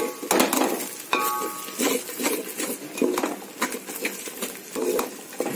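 A spatula stirring and scraping a thick masala paste around a metal pot, with irregular scrapes and light knocks against the pot, as the paste is fried until the oil separates.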